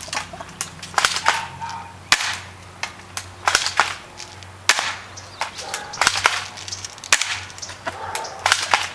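Airsoft gun fired shot after shot in single sharp snaps, roughly two a second at uneven intervals.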